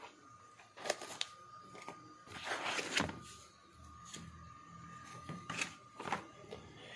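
A few sharp clicks and knocks with a short rustle, as of an object being handled, over a faint steady high hum.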